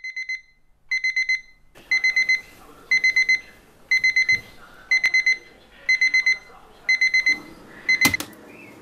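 Alarm clock beeping: short bursts of four or five rapid high beeps, one burst about every second. Near the end a loud sharp knock, and the beeping stops.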